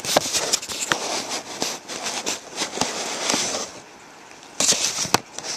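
Paper crinkling and rustling as a mailed envelope is opened by hand, dense and crackly at first, dropping off for about a second, then a short burst of crinkling ending in a sharp snap near the end.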